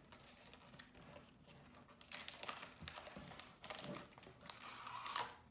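Cardboard Polaroid i-Type film box being opened by hand: a run of small clicks, scrapes and rustles of the flaps and the pack inside, busier in the second half.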